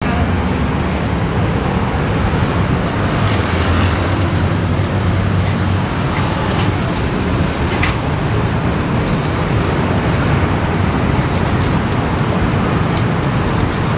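Steady street traffic noise. Over the last few seconds comes a quick run of sharp scraping clicks as a knife blade is worked along a whole red tilapia on a wooden chopping board.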